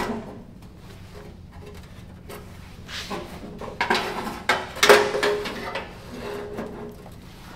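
Knocks and rattles of steel lawn-mower parts being handled and moved, one near the start and a cluster about three to five seconds in, the loudest with a short metallic ring.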